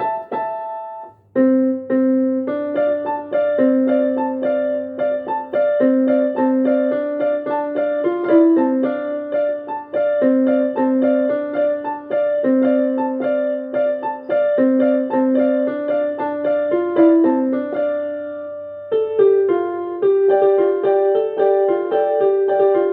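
Electronic keyboard in a piano voice playing a tune note by note over low held bass notes, with a brief break about a second in.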